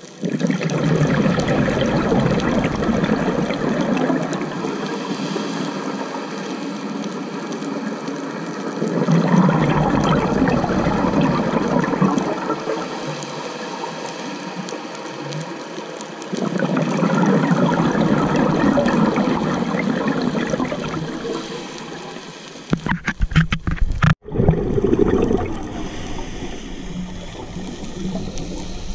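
Scuba diver's breathing heard underwater: long rushing, gurgling bursts of exhaled bubbles from the regulator every seven or eight seconds, with quieter inhalations between. Near the end comes a brief rattle, then a momentary cut-out.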